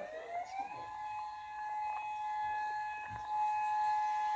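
Civil defense warning siren winding up, its pitch rising for about the first second, then holding a steady tone of two notes.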